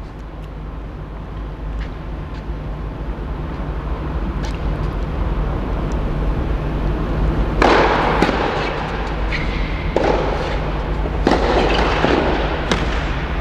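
Tennis rally on an indoor clay court: racket strikes on the ball as sharp cracks, with several louder, noisy half-second bursts in the second half, all echoing in the covered hall over a steady low hum.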